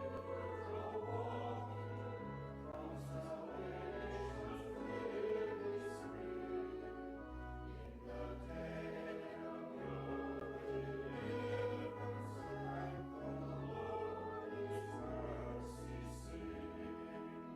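Choir singing over sustained low bass notes that change in steps, typical of organ accompaniment.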